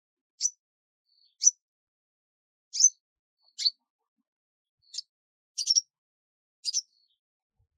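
Small bird chirping: seven short, high chirps spaced about a second apart.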